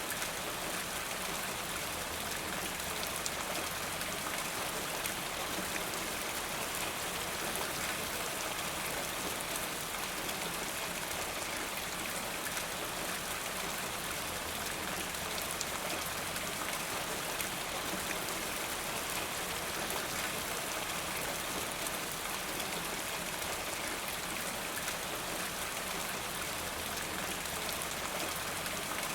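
Steady rain falling, an even hiss of many fine drops with no thunder or gusts.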